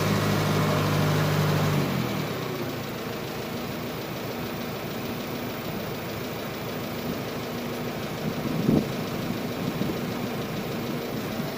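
John Deere 410 backhoe engine running, dropping to a lower, quieter steady idle about two seconds in. A single brief knock sounds near the end.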